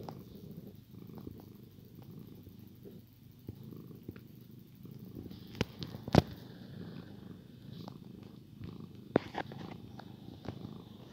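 Domestic cat purring steadily while being stroked on the head, a low continuous rumble. A few sharp clicks cut in, the loudest about six seconds in and another about nine seconds in.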